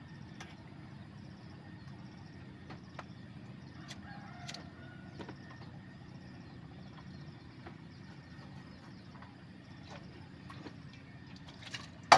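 Quiet outdoor background: a steady low rumble with a few faint clicks, and a short bird call about four and a half seconds in. Right at the end a loud, rapid run of ringing, bell-like strikes begins.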